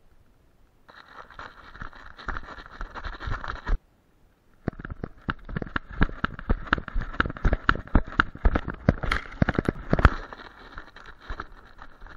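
Action camera strapped to a running German Shepherd's harness: a rustling hiss with dense, irregular knocks and rattles as the mount jostles with each stride. The sound cuts out for about a second near the four-second mark.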